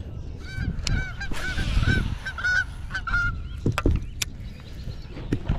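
A bird calling: a quick run of short, repeated calls over the first three seconds, followed by a few sharp knocks.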